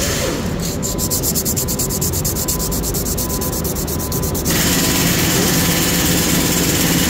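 Sandpaper rubbed by hand back and forth over the metal face of a Mercedes clutch pressure plate, a scratchy rasping that gets steadier and a little louder about four and a half seconds in. The used plate is being scuffed so that the reused clutch grips and does not slip.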